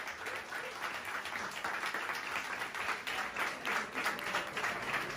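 Audience applauding, steady hand-clapping.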